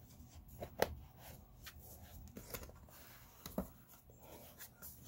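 Hands handling a closed aluminium 2009 15-inch MacBook Pro, pressing its case back together: scattered light clicks and rubbing, with two sharper knocks, one about a second in and one at about three and a half seconds.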